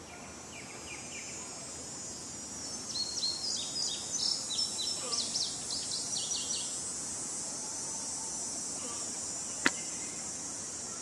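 Outdoor ambience: a steady high insect drone, with a bird calling in a quick series of short high chirps from about three to seven seconds in. A single sharp click sounds near the end.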